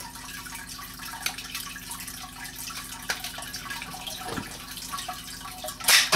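Nerf Maxforce Gator toy blaster being loaded and fired: a few light plastic clicks, then a loud, sharp snap about six seconds in as the pulled-back peg is released. A steady faint hiss and hum lie underneath.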